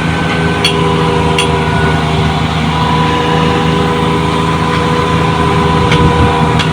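Heavy truck engine running steadily at a constant speed, with a steady whine over it and a few sharp clicks in the first second and a half.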